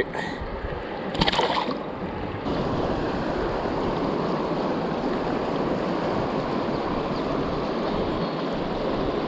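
Rushing water of a freestone river, a steady hiss that steps up louder about two and a half seconds in. A short louder burst of noise comes about a second in.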